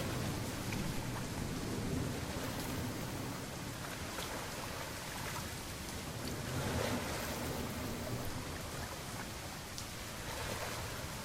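Steady rain with a low rumble underneath that swells and eases a few times.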